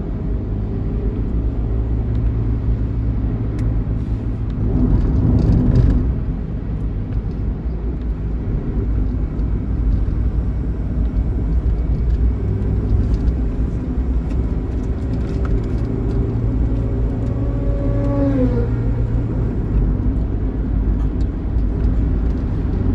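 Bus engine and road noise at highway speed, a steady low rumble that swells about five to six seconds in. A pitched note slides down sharply about eighteen seconds in.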